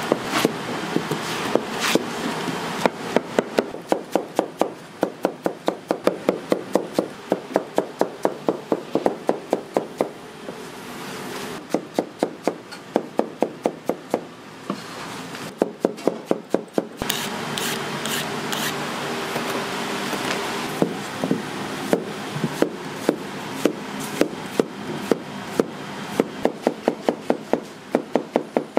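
Kitchen knife chopping fast on a wooden cutting board, about four or five strokes a second, in runs broken by short pauses.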